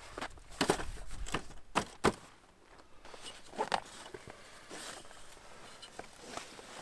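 Irregular knocks and scuffs, a handful spread over several seconds with the sharpest about two seconds in: footsteps and folding camp furniture being moved about while camp is set up.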